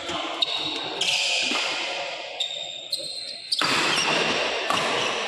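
Badminton doubles rally: several sharp racquet hits on the shuttlecock, with short high squeaks of shoes on the court mat between them.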